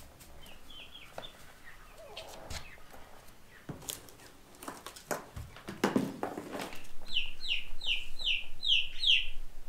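Young chicks peeping: a few short, high, falling peeps near the start, then a quick run of about seven, roughly three a second, near the end. Between them come scattered clicks and a couple of louder rustles.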